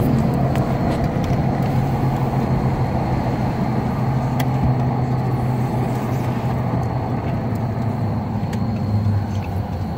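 Car engine and road noise heard from inside the cabin while driving: a steady low hum that dips lower in pitch near the end.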